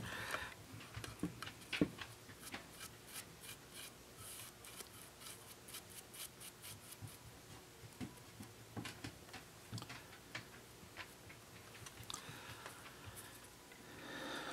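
Quiet handwork sounds of a paintbrush applying a clear coat to a painted box held in the hand: scattered light clicks and taps, one sharper tap about two seconds in, and a soft brushing rustle near the end as the brush goes back into the jar.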